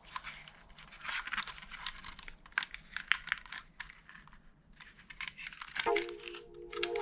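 Crinkling and tearing with quick small clicks, as of plastic packaging being handled. Near the end, music with a pulsing repeated tone starts.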